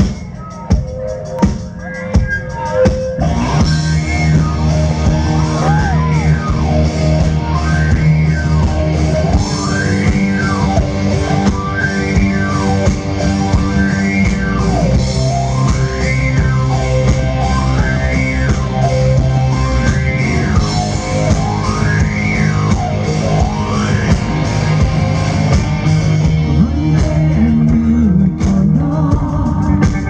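Rock band playing live through a PA: a few single drum hits, then about three seconds in the full band of drums, electric guitars and bass comes in. A swooping tone rises and falls over and over through the middle of the passage.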